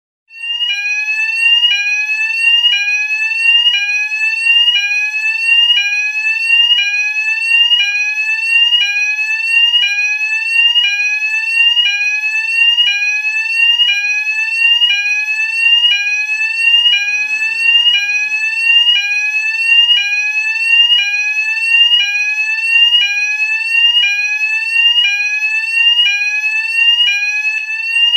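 Fire alarm sounding a loud, repeating rising tone: each sweep climbs for about a second, drops back suddenly and starts again, on and on without a break.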